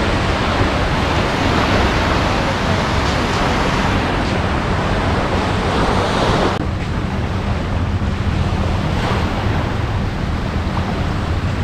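Small waves breaking and washing up a sandy shore, with wind buffeting the microphone as a low rumble. The sound shifts abruptly about six and a half seconds in.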